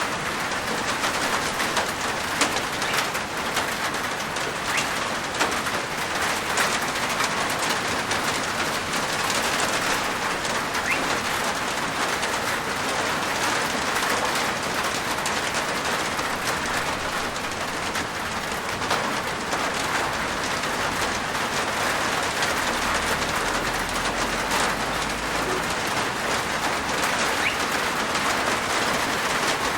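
Steady rain falling on a rooftop: a dense even hiss of rain with many individual drops ticking through it.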